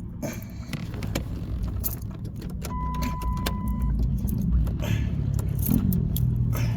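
Keys jangling and the ignition lock cylinder clicking and rattling as it is wiggled loose from the steering column with the release button held in. A steady beep sounds for about a second, roughly three seconds in.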